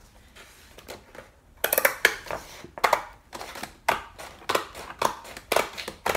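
Paper book pages rustling and being turned, a short crisp swish about twice a second starting about a second and a half in.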